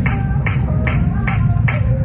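Pop music played over a loudspeaker system, with a steady beat of sharp tambourine-like hits about two and a half per second and a sung or synth melody, over a continuous low rumble.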